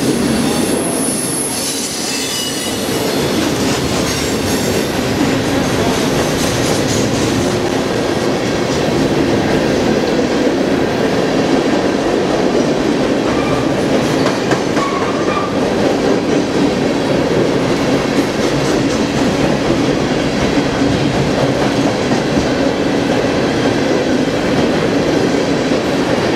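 Freight train cars rolling past close by: a steady rumble of steel wheels on rail, with brief wheel squeals, the clearest about halfway through.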